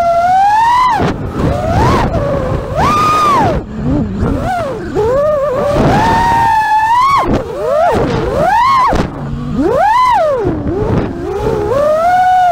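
FPV quadcopter's brushless motors and propellers whining, the pitch swooping up and down many times as the throttle is punched and let off, with a low rumble of wind and prop wash underneath.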